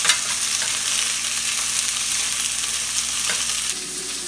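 Green beans sizzling in hot oil in a stainless steel pan, stirred with a metal spatula, with a couple of sharp clicks of the spatula against the pan.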